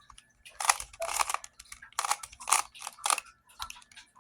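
A twisty puzzle cube being turned by hand: rapid plastic clicking and clacking of its layers, in several quick runs of turns with short pauses between.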